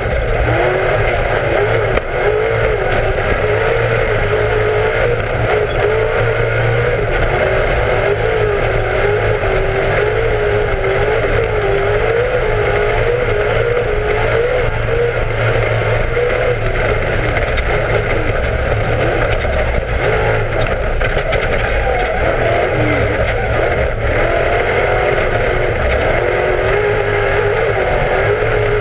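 Class 1 off-road race car's engine running hard and continuously, its pitch wavering up and down in quick swells.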